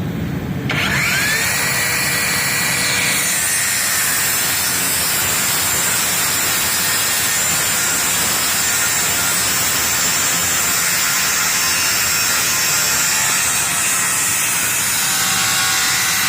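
Electric power tool spinning up with a rising whine that settles to a steady pitch, then cutting into wood with a continuous loud, noisy grinding that runs on.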